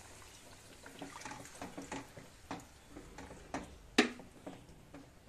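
Spatula stirring water into thick masala gravy in a kadai, scraping and tapping against the pan in a run of small clicks, with one sharp knock about four seconds in.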